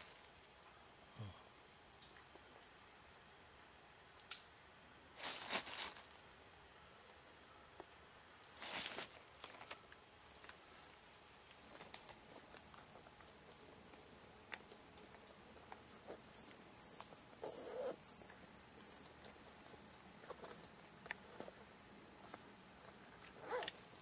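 Nocturnal rainforest insects chirping in a steady chorus: several high-pitched callers repeat evenly spaced chirps at different pitches. Two brief rustles cut across them about five and nine seconds in.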